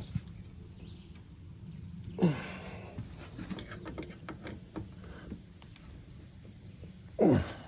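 Faint clicks and handling noise as a screw is tightened by hand with a screwdriver. About two seconds in and again near the end there is a short, breathy vocal sound that falls in pitch, and these two are the loudest sounds.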